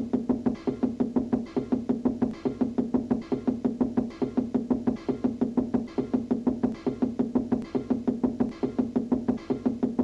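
Cartoon knocking effect: a fist rapping on a wall in a quick, even run of hollow knocks, about four or five a second, each with a pitched, musical ring.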